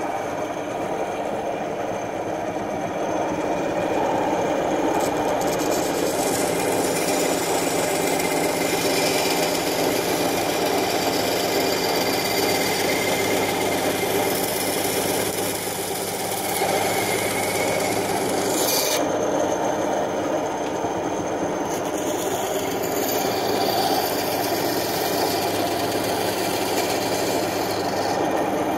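Small handheld power tool running steadily while cutting and trimming down a plastic turn-signal bulb socket, a grinding noise over the motor's steady hum.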